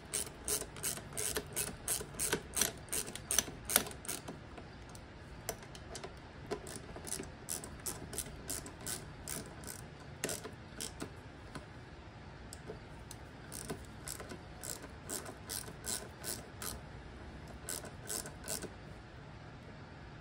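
Hand ratchet clicking as it tightens down the front brake caliper mounting bolts. The clicks come fast and dense for the first few seconds, then in shorter runs with pauses between strokes.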